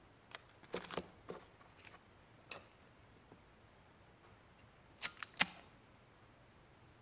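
A few small handling clicks and taps, then about five seconds in, three quick sharp clicks of a disposable flint lighter's wheel being struck before it lights.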